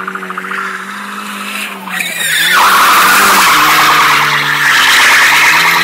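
Nissan 200SX S14's turbocharged four-cylinder engine held high in the revs while the car drifts past, the pitch dipping briefly and rising again. About two seconds in, a loud, sustained squeal of sliding tyres swells up and holds until near the end.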